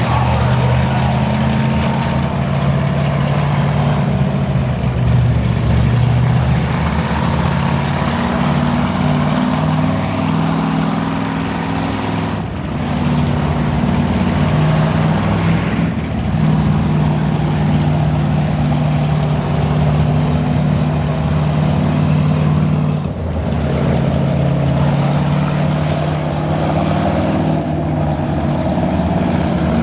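Engines of cruiser-class stock cars running in a race, steady and loud with the engine pitch shifting as the cars go around, and brief dips in level three times.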